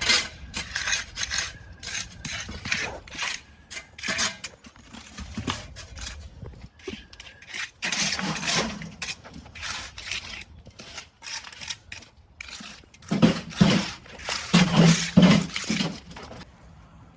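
Irregular clattering knocks, clinks and scrapes of hard objects being handled, with louder bunches of knocks about halfway through and again near the end.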